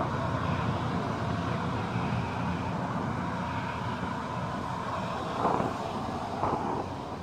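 Steady road traffic: cars driving past with a low rumble of engines and tyres, and a couple of brief louder swells about five and a half and six and a half seconds in.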